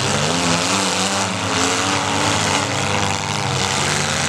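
Several small demolition-derby car engines running and revving together, their overlapping notes shifting up and down in pitch.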